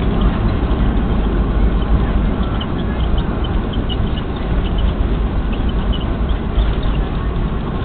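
Cabin noise in a Boeing 737-300 during its landing rollout with the ground spoilers up: a loud, steady roar of engines and rushing air over a deep rumble from the runway. Faint short squeaks come through it in the middle.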